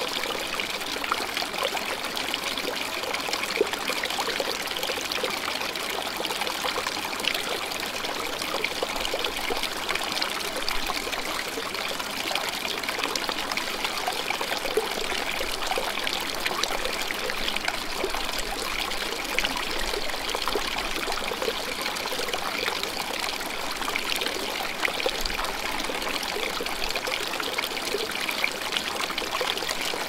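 Close-up of a small stream of river water trickling and splashing over rock into a narrow channel: a dense, steady splashing. Wind buffets the microphone's windshield now and then, a low rumble about ten seconds in and again near twenty-five seconds.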